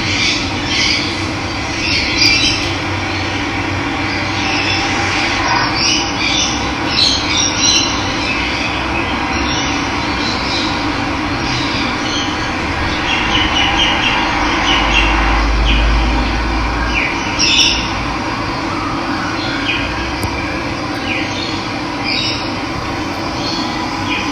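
Running water rushing steadily, with wild birds chirping and calling in short scattered bursts over it.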